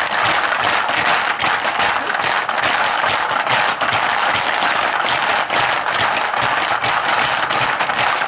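Hungry Hungry Hippos game in play: several plastic hippos chomping at once as players hammer their levers, a fast, continuous plastic clatter with marbles clacking against the board.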